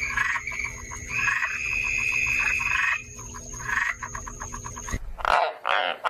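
A frog calling in a steady, rapidly pulsed trill over a thin high steady tone and a low hum. About five seconds in it cuts off, and White's tree frogs take over with loud, harsh croaks in quick succession.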